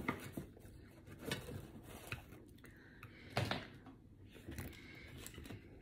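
Quiet eating sounds: wooden chopsticks clicking against a ceramic bowl as food is picked up, and chewing, with a few scattered clicks.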